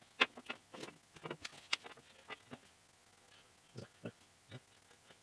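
Metal parts being handled and fitted on a cast-iron Delta jointer during assembly: a quick run of sharp clicks and light knocks, a short lull, then three spaced knocks near the end.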